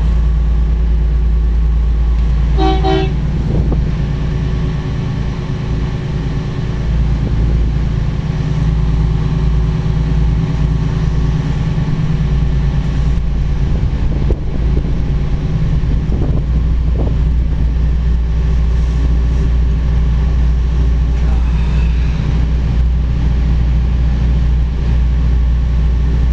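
Twin Cummins QSC 600 hp six-cylinder marine diesels running steadily, a deep, even drone heard from inside the boat's wheelhouse. A brief tone sounds about three seconds in.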